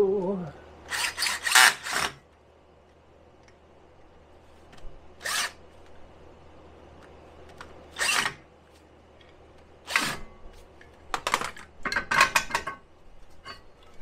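Cordless drill run in short bursts against the rear wheel hub, a cluster of quick pulls near the start, single bursts in the middle and another cluster near the end, over a steady fan hum.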